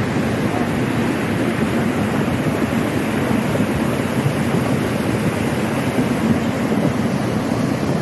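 Muddy floodwater from a river that has burst its banks rushing across a road, a loud, steady churning noise of fast-moving water.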